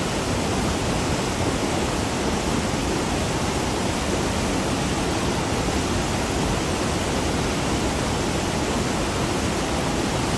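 Small waterfall pouring over a rock ledge: a steady rush of falling water, heard close up.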